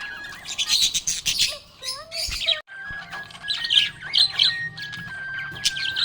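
Budgerigars chirping and squawking in quick, dense bursts over background music with a simple held-note melody. The sound briefly cuts out about two and a half seconds in.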